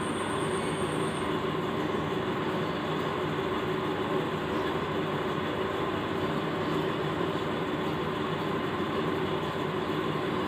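Steady mechanical hum with even background noise, holding at one level with no change.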